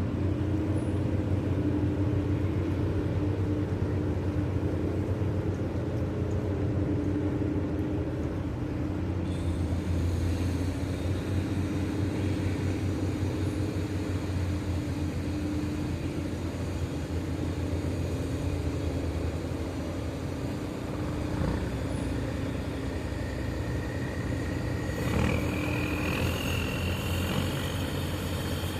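A tugboat's heavy engine running steadily with a deep, even hum. Near the end a thin high tone rises slowly in pitch above it.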